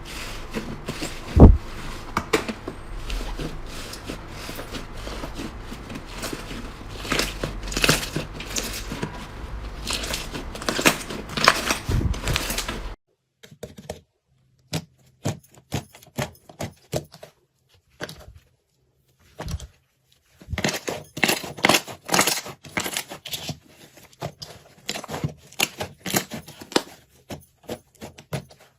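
Slime being squeezed and worked by hand, giving a dense run of sticky clicks and crackling pops, with a single loud thump about a second and a half in. About halfway through the low background hum drops out, and the clicks then come in clusters with silent gaps between them.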